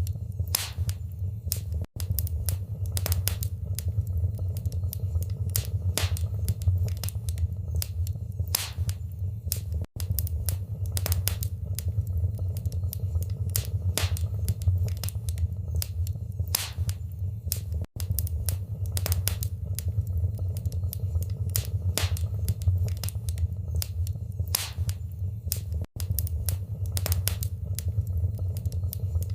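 Wood fire in a fireplace crackling, with irregular sharp pops and snaps over a steady low rumble. The sound cuts out for an instant four times, about every eight seconds.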